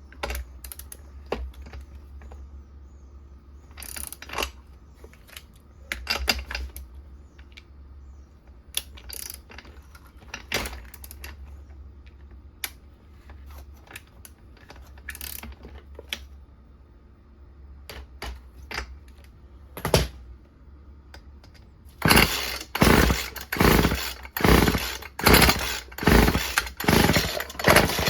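Scattered clicks and knocks of handling, then, about 22 seconds in, the recoil starter of a Stihl FS36 string trimmer pulled over and over, about two pulls a second, cranking its small two-stroke engine.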